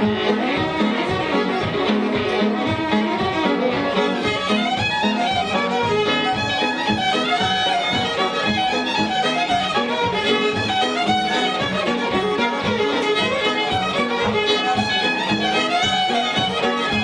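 Fiddle-led instrumental music: a fast run of quick notes over a steady beat.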